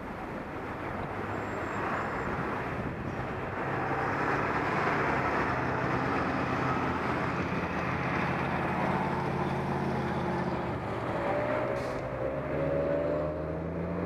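Street traffic heard from a bicycle: a car engine running close alongside over steady road noise, its pitch rising near the end as a vehicle speeds up.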